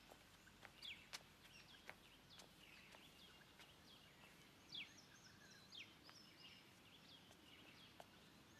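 Near silence with faint outdoor birdsong: sparse short chirps and quick downward-sweeping whistles every second or so, with a few light clicks.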